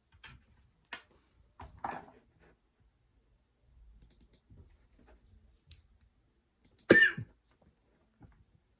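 A few scattered clacks from a Keychron mechanical keyboard, irregular and not a typing rhythm. A louder, sharper short sound comes about seven seconds in.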